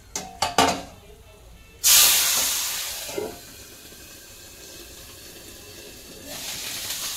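Hot oil with mustard seeds sizzling in a pan. After a few sharp clicks, a sudden loud burst of sizzling starts about two seconds in, as food goes into the oil. It dies down to a steady hiss and swells again near the end.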